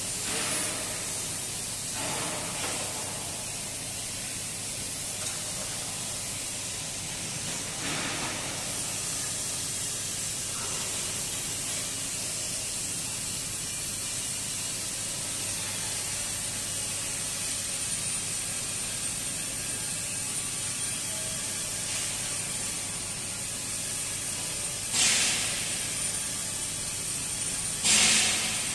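Steady hissing noise of a pipe fabrication shop, with two short, louder bursts near the end.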